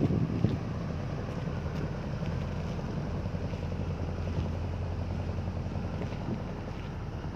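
Tugboat engine running with a steady low drone.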